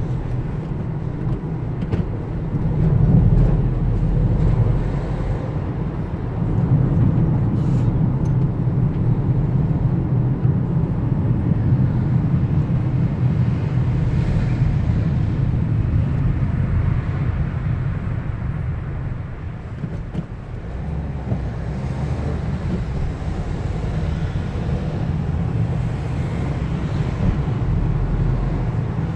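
Steady low rumble of a road vehicle on the move, dipping briefly about two-thirds of the way through.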